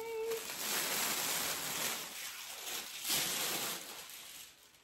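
Plastic packaging rustling and crinkling as a vacuum-compressed bed pillow is unwrapped, dying away near the end.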